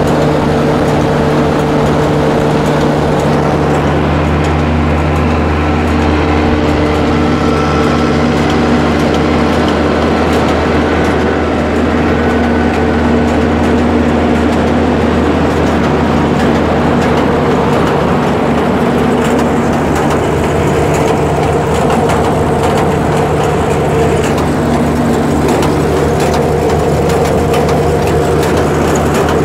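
The AGCO Sisu six-cylinder diesel engine of a 2009 Gleaner A66 combine running steadily, heard up close, with a low hum that grows stronger about three seconds in.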